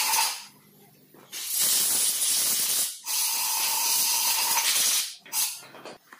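Compressed-air blow gun hissing in blasts with a whistling tone, blowing clean a diesel filter housing part. A blast ends just after the start, a long blast breaks briefly halfway and stops about five seconds in, and a short puff follows.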